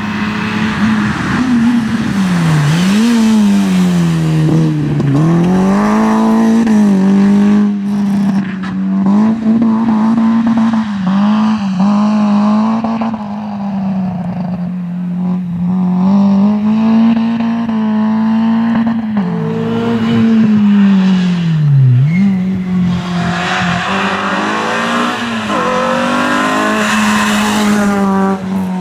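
Rally car engine run hard at high revs, its pitch dropping sharply and climbing back several times as the driver lifts and shifts gear.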